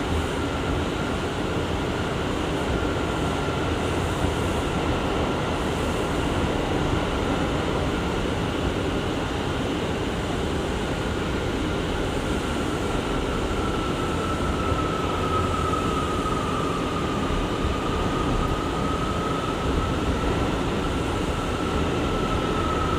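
R179 subway car heard from inside while running: a steady rumble of wheels on rail with a thin high whine that holds a near-constant pitch, dipping slightly about two-thirds of the way through.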